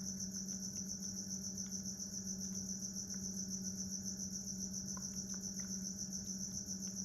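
Crickets chirping steadily in a continuous high-pitched trill, over a steady low hum.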